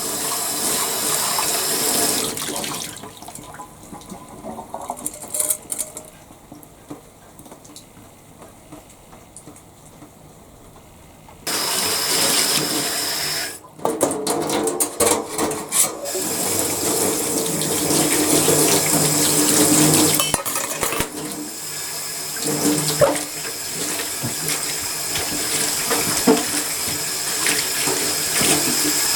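Water running from a tap and splashing. It is shut off about three seconds in, leaving small clicks and knocks, then turned on again partway through and left running.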